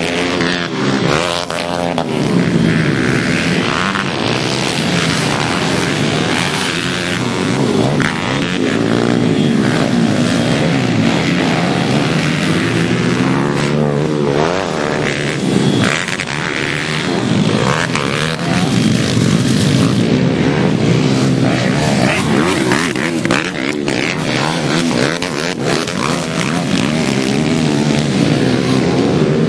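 Several pit bike engines revving up and down as the bikes race, their rising and falling pitches overlapping.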